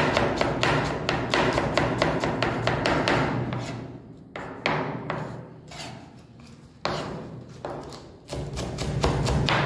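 Chef's knife rapidly chopping onion on a wooden cutting board: a fast run of knocks of blade on board, several a second. The strokes thin out to a few single cuts for a few seconds in the middle, then pick up again near the end as the knife slices cabbage.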